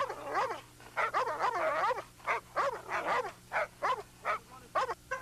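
Doberman Pinscher barking in a steady run of barks, about two or three a second.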